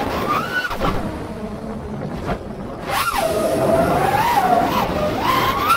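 Brushless motors and propellers of a 5-inch FPV freestyle quadcopter (Hypetrain 2306 2450KV motors) whining, heard from a camera mounted on the quad. The pitch holds steady, then climbs sharply and falls back three times as the throttle is punched and released.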